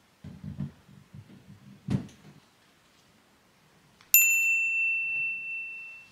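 LEGO brick wall sections rubbing and knocking as one is fitted onto the other, with a sharp click about two seconds in. A single bright bell-like ding follows about four seconds in and rings on for about two seconds.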